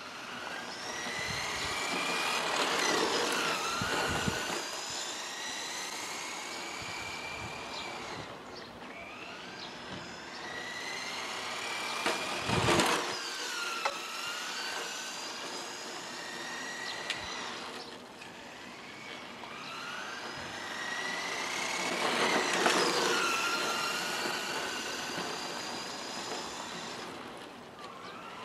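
Tamiya Ford Escort RS 1/10-scale electric radio-controlled car driving back and forth, its motor whine rising and falling in pitch as it speeds up and slows, over tyre noise. It gets loudest three times as it passes close: about three seconds in, just before halfway, and about three-quarters through.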